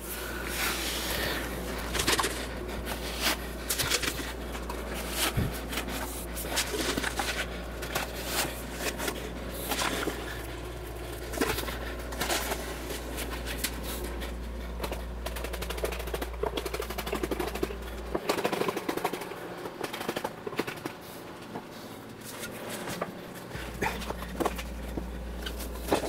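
Refractory mix being packed into a furnace mould by hand: irregular knocks, taps and scrapes of a wooden tamping rod and a shovel, with footsteps on a concrete floor. Under them runs a steady low hum that drops out for a few seconds after about 18 seconds.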